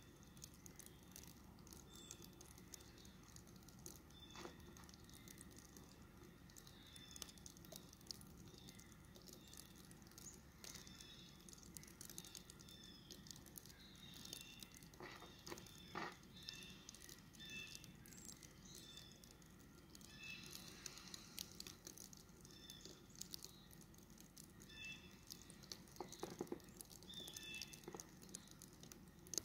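Near silence: faint outdoor ambience with scattered soft ticks and brief high chirps.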